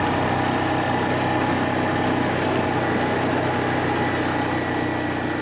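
Vehicle engine idling steadily just after being started.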